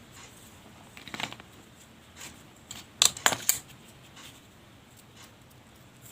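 Scissors snipping crochet yarn: a faint click about a second in, then three sharp metallic clicks in quick succession about three seconds in.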